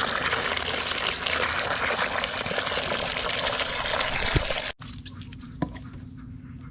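Water from a garden hose pouring into a water container, a steady splashing rush that cuts off abruptly a little before five seconds in. After that there is quieter background with a single knock.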